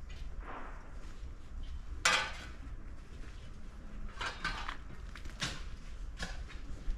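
Footsteps on the shrine grounds: slow, uneven steps, about one a second, the loudest about two seconds in, over a low steady rumble.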